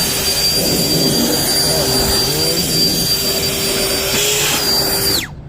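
Saker handheld battery jet blower spinning up to a high-pitched whine, running steadily for about five seconds, then winding down and stopping.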